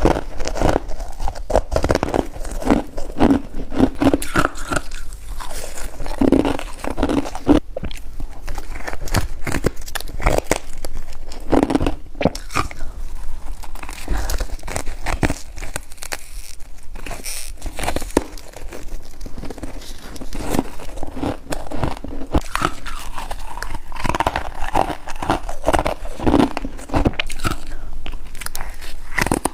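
Close-up crunching of someone biting into white snow ice and chewing it: a dense, irregular crackle of small brittle cracks, one bite after another.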